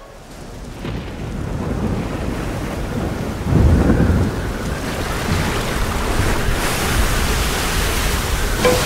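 Storm sound effect: steady heavy rain, building over the first second or two, with a low rumble of thunder about three and a half seconds in.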